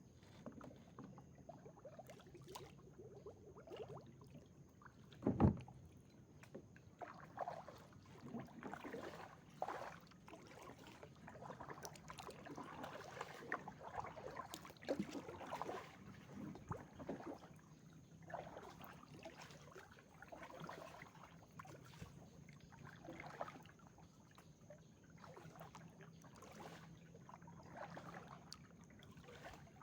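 Kayak paddle strokes: the blades dip and swish through the water about once a second. There is one sharp, louder thump about five seconds in.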